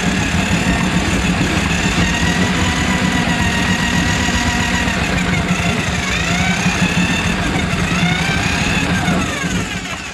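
Electric drum drain auger running, its spinning cable working through a grease-plugged kitchen sink drain line. A steady motor hum with a whine that dips and recovers about six seconds in, then falls away as the machine winds down near the end.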